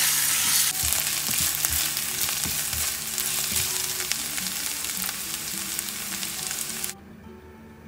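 Chicken breast strips, onion and garlic sizzling in hot oil in a nonstick pan, stirred with a spatula that knocks and scrapes now and then. The sizzle cuts off suddenly about seven seconds in.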